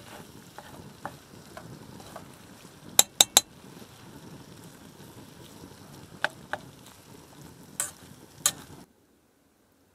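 Food sizzling in a pan, with a metal utensil clicking sharply against the pan several times, three quick clicks about three seconds in. The sound stops abruptly near the end.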